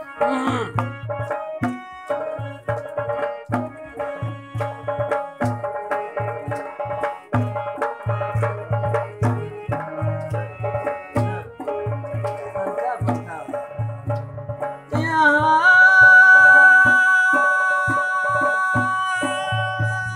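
Music of a Khowar devotional song: a hand drum beats a steady rhythm under a melodic instrument line. About 15 s in, a long held note with a slide at its start comes in and the drum pauses, then picks up again near the end.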